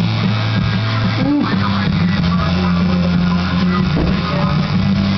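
Guitar music playing over a steady low electric buzz, the tattoo machine running as it inks the chest.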